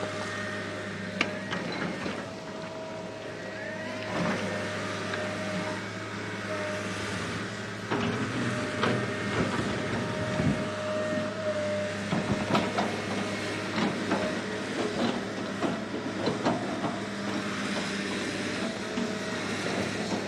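Small electric motor and plastic gearbox of a corded toy excavator whirring steadily as its arm and bucket work, with scattered clicks and sand scraping and spilling; the clicks grow busier and louder from about eight seconds in.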